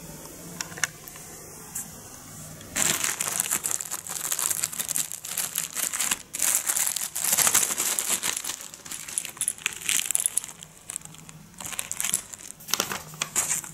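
Clear plastic bag crinkling and rustling as it is handled and a coiled yellow lead is taken out of it. The crinkling starts about three seconds in and goes on in irregular bursts almost to the end.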